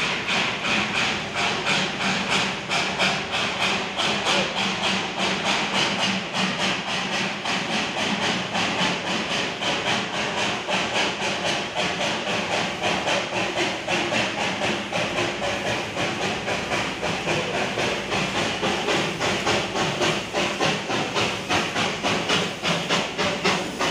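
Darjeeling Himalayan Railway B-class steam locomotive working its way past at close range: a steady run of rapid, even exhaust chuffs over a constant hiss of steam, the chuffs growing sharper and louder as the engine draws level near the end.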